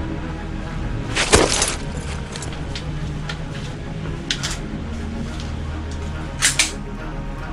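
Background music with a few sharp clacks over it: a loud quick cluster about a second in, a single clack past the middle, and a double clack near the end.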